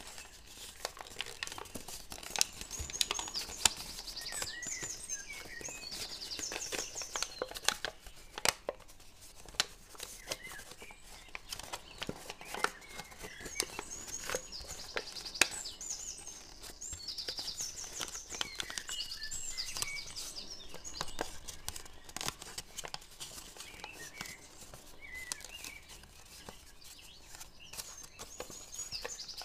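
Origami paper being folded and creased by hand, crinkling and crackling with many small sharp clicks. Birds chirp in the background in several short bouts.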